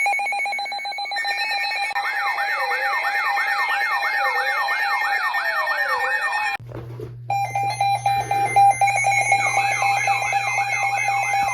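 Layered electronic alarm and siren sounds: a steady rapidly pulsing tone under quick, repeating warbling sweeps and slower falling wails. It cuts out for a moment about six and a half seconds in, then starts again over a low steady hum.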